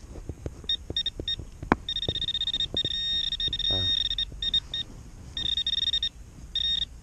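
Metal detector beeping at one high pitch as it is swept over a dug hole to locate a target in the loose soil: short blips at first, then longer held tones from about two seconds in. Soft scrapes and clicks of soil being handled sound underneath.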